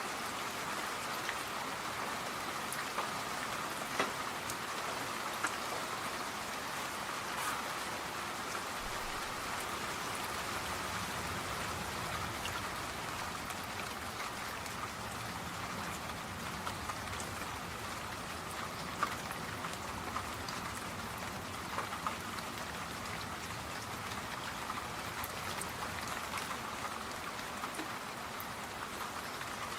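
Steady rain falling, an even hiss with scattered single drops ticking louder now and then.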